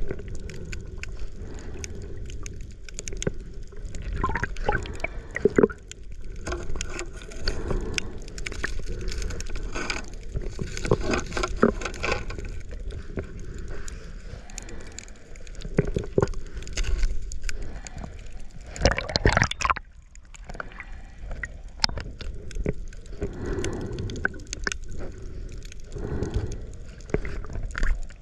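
Water sloshing and gurgling against a camera underwater, with scattered sharp clicks and knocks.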